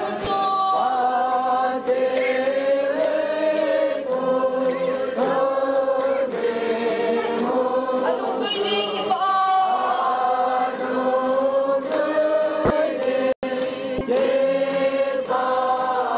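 A group of men and women singing together, a slow song with long held notes. The sound cuts out for an instant about thirteen seconds in.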